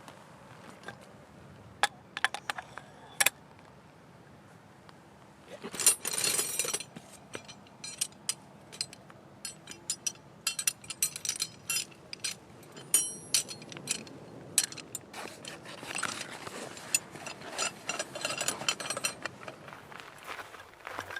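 Irregular clicks, clinks and rattles of hard objects being handled, with short bursts of rustling about six seconds in and again near the end.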